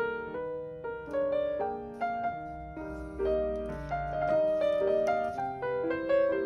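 Background piano music: a melody of separate notes, two or three a second, over softer lower notes.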